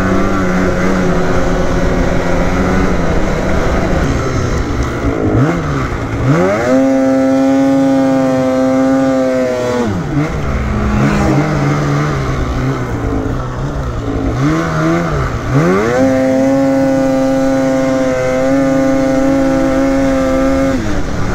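Polaris Matryx Assault 146 snowmobile's two-stroke 850 Patriot engine running along the trail. The throttle opens about six seconds in and again about sixteen seconds in, each time climbing to a steady high-revving pull around 7300 rpm before backing off, with a constant rush of wind and track noise underneath.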